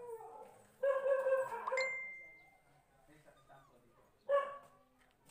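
A dog barking in drawn-out, pitched barks: the tail of one falling away at the start, a long bark about a second in, and a short one past four seconds. Just before two seconds in, a brief high ringing tone, like a small ding.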